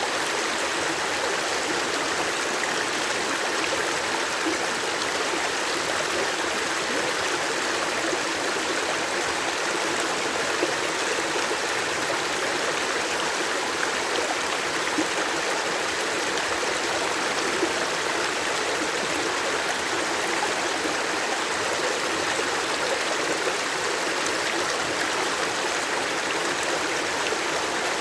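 Water flowing steadily, a constant rushing stream with no let-up.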